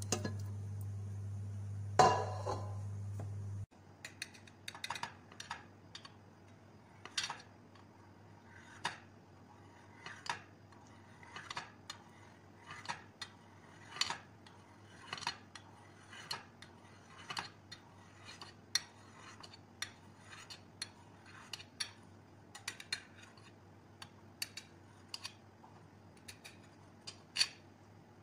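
Knife cutting set gelatin in a glass baking dish, its blade tapping the glass with light clicks, irregular, one or two a second. Before that, a steady low hum with one clatter about two seconds in, which stops abruptly at a cut.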